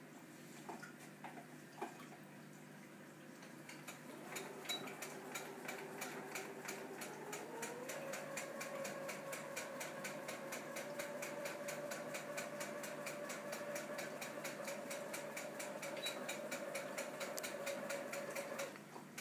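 A small motor starts running with a rapid, even ticking. Its hum rises in pitch a few seconds after it starts, then holds steady, and it stops suddenly near the end.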